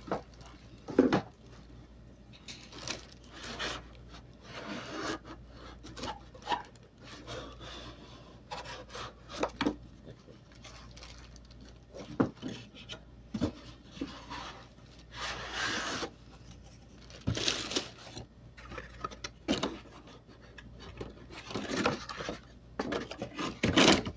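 Clear plastic packaging crinkling and rustling in irregular bursts as it is handled and opened by hand, with occasional sharp knocks against a wooden table.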